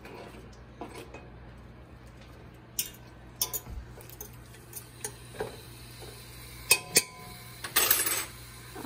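Diced raw chicken scraped off a plastic cutting board with a knife into a stainless steel stockpot: scraping, with a few sharp knocks and clinks of the knife and board against the pot.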